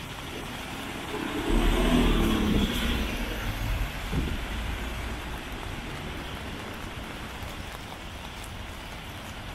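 A motor vehicle passes close by with its engine rumbling, loudest about two seconds in and fading out by about four and a half seconds, over steady city street noise.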